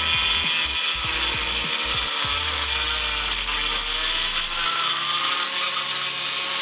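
Black+Decker G650-IN 650 W angle grinder with a 4-inch disc running at speed and cutting into a thick piece of wood. A steady high motor whine with the hiss of the disc grinding through the wood.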